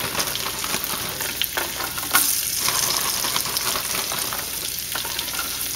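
Butter, olive oil and garlic sizzling in a skillet with freshly added shredded carrots: a steady frying hiss with small crackles, one sharper pop about two seconds in.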